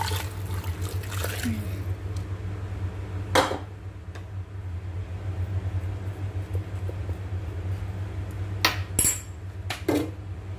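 Broth poured into an aluminium pot for about two seconds. Then a metal spoon clinks against the pot: once about three and a half seconds in, and a few times near the end. A steady low hum runs underneath.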